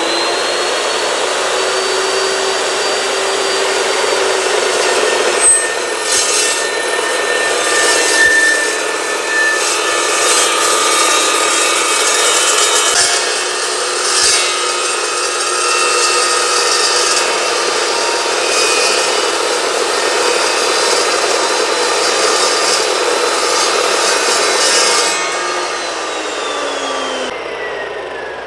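Evolution S355MCS 14-inch dry-cut metal chop saw finishing its spin-up with a rising whine, then its carbide-tipped blade cutting a 45-degree miter through 2x3 steel rectangular tube, a steady grinding, hissing cut that lasts about twenty seconds from about five seconds in. Near the end the trigger is released and the motor winds down with a falling whine.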